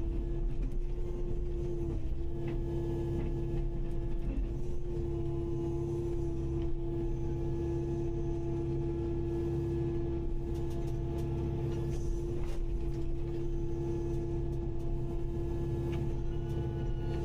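Kubota KX080-5 excavator running at a steady engine speed, a constant hum with a low rumble beneath, with a few faint knocks scattered through.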